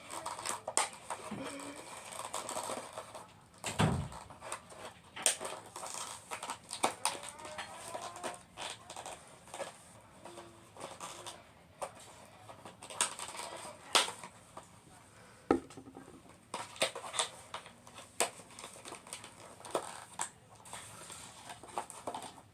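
Toy packaging being opened by hand: a long run of irregular crinkles, clicks and taps, with a heavier thump about four seconds in.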